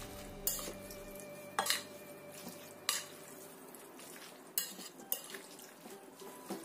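Metal spoon stirring sauce-coated yellow noodles in a ceramic bowl, the spoon clinking against the bowl about once a second.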